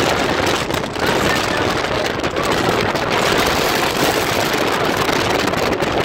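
Strong typhoon wind buffeting the microphone over high surf breaking on the beach: a continuous loud rush with no letup.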